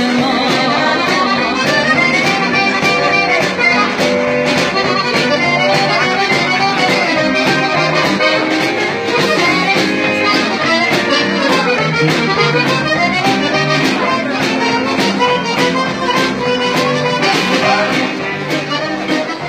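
An accordion plays a lead melody in an instrumental break, backed by a live dance band with a steady drum beat.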